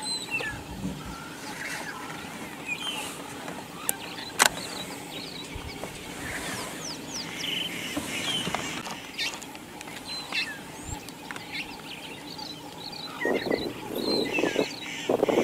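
Wild birds chirping and calling throughout, with two sharp clicks about four seconds in. Near the end a male lion growls, loud and rough, growing louder.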